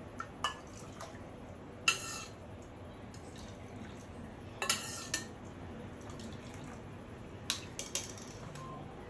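A steel ladle clinking against a steel pot and a plastic measuring cup while hot water is ladled into the cup: a few sharp clinks about two seconds in, a cluster around five seconds and three more near the end, with little sound between.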